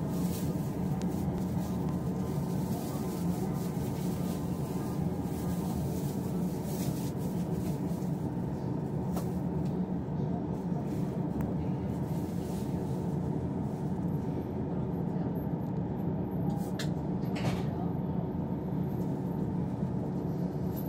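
Steady low rumble and hum of a train heard from inside the carriage, with a couple of brief clicks near the end.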